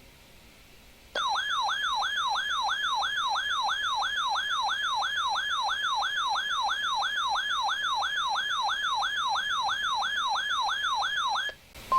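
Weather alert radio's built-in alarm siren, a loud warble of quickly repeating falling sweeps, about two and a half a second, that starts about a second in and cuts off shortly before the end; it signals an incoming warning.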